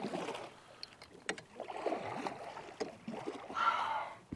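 River water sloshing and splashing in two swells, about a second and a half in and again near the end, with small clicks and knocks between.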